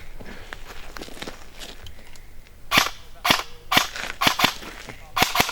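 Airsoft gun firing about seven single shots in quick, uneven succession, starting about three seconds in.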